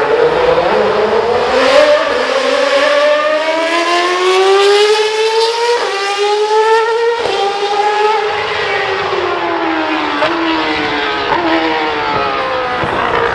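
Red Bull Formula 1 car's Renault V8 engine at high revs, its pitch climbing through quick upshifts with short breaks about six and seven seconds in, then falling away in steps for the rest.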